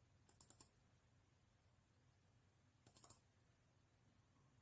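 Near silence broken by two short, faint clusters of quick clicks, about half a second in and again about three seconds in: clicks of a computer pointer opening folders.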